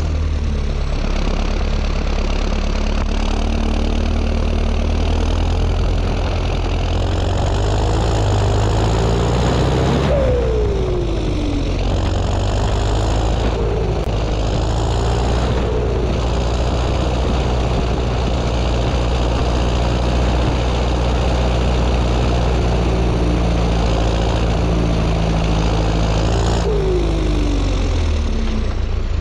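John Deere 6230 tractor's turbocharged four-cylinder diesel running steadily under load, with the turbo's high whistle over the engine drone, while a front disc mower cuts grass. Twice, about ten seconds in and near the end, a short falling whine sounds.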